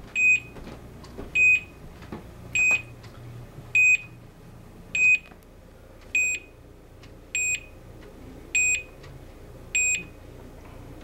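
Skylink HA 300 alert receiver beeping: a short high beep about every 1.2 seconds, nine in a row, stopping near the end. It is signalling that its motion sensor has been tripped by someone walking past.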